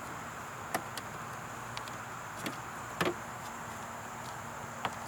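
Four light clicks and taps of plastic interior trim being handled under a minivan's dashboard, the one about three seconds in the loudest, over a steady hiss.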